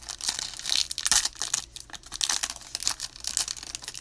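Plastic trading-card pack wrapper being torn open and crinkled by hand, a dense irregular crackling throughout.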